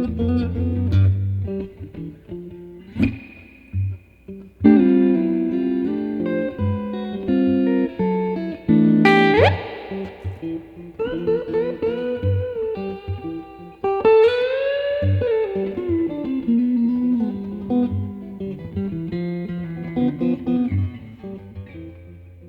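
Electric guitar with Mtone SSS single-coil pickups played clean: plucked chords and single notes, with a quick upward pitch sweep about nine seconds in and notes bending down in pitch a little later, the playing fading toward the end.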